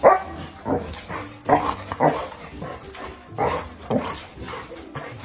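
A dog barking repeatedly, about six barks, several of them in quick pairs about half a second apart.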